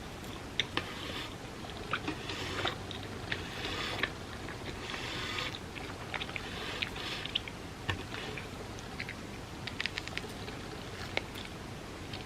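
Close-miked chewing, with sharp mouth clicks scattered irregularly between stretches of chewing noise.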